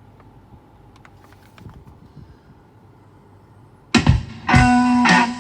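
Quiet room tone with a few faint clicks, then about four seconds in, strummed guitar chords start loudly, opening a song.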